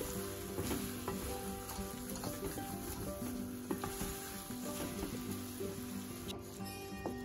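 Mutton in thick masala sizzling in its own released oil in a pan, stirred and scraped with a wooden spatula: the fried (bhuna) stage of a curry.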